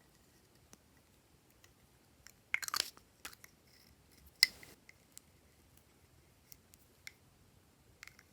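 Glossy slime being squished and worked by hand: a short burst of wet crackles about two and a half seconds in, one sharp pop a couple of seconds later, and scattered faint clicks.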